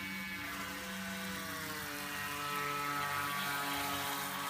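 Battery-powered RC speedboat's electric motor whining as the boat runs across the water. Its pitch slides down a little about a second and a half in, then the sound grows louder as the boat comes close near the end.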